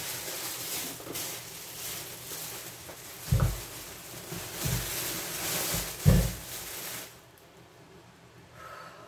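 Thin plastic shopping bags rustling and crinkling as they are handled, with three dull thumps as bags are set down on the counter; it goes much quieter about seven seconds in.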